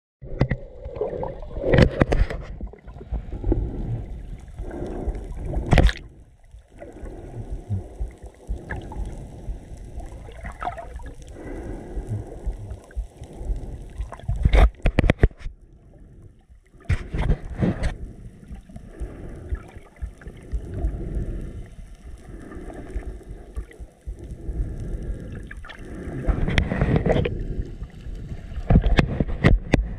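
Muffled underwater sound heard through an action camera's waterproof housing: a low, rumbling wash of moving water that swells and fades, with several sharp knocks scattered through it.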